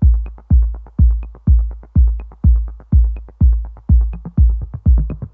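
Electronic background music with a steady kick drum at about two beats a second and quick ticking hi-hats.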